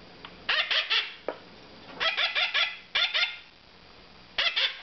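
Young mustached parakeets calling in four bursts of two to five quick, downward-slurred squawks each. These are the food-begging calls of almost two-month-old chicks at feeding time.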